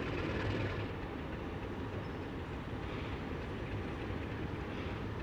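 A diesel locomotive and Beyer-Garratt steam locomotive 6029 standing at the head of a train: a steady low rumble with a hiss that swells about half a second in, again around three seconds, and near the end.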